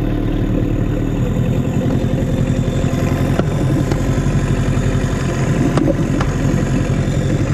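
Small Mercury outboard motor running steadily on a small inflatable boat under way, heard close up from the tiller.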